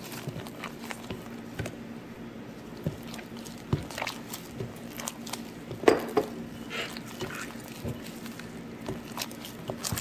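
Gloved hand squeezing and mixing flour into a runny egg-and-sugar batter in a glass bowl: irregular wet squelches and small clicks, with one louder knock about six seconds in.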